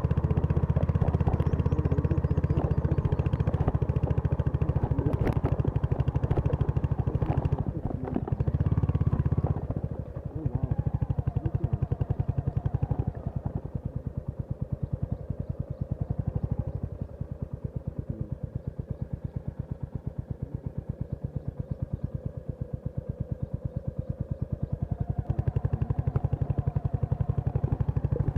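Royal Enfield Hunter 350's single-cylinder engine running on the move, its exhaust beating in a steady, even pulse. It drops to a softer beat about ten seconds in and grows louder again near the end.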